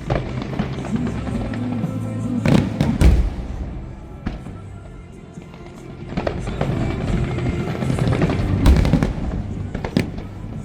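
Aerial fireworks shells bursting overhead, sharp bangs with crackle and rumble, loudest in a cluster about two and a half seconds in and again near the end, while music plays over loudspeakers.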